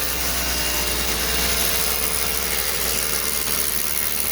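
Power drill boring into a concrete slab for foundation foam injection, running steadily at full speed.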